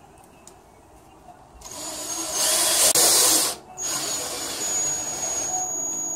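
Craftsman cordless drill driving screws into a wooden bench leg in two runs. The first starts about a second and a half in and is loudest partway through as the screw bites into the wood; after a brief pause, a second run follows with a steady high motor whine.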